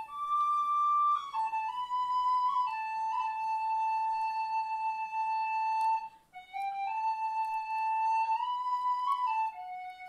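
Background music: a solo flute-like wind instrument playing a slow melody of long held notes that step up and down, with a short break between phrases about six seconds in.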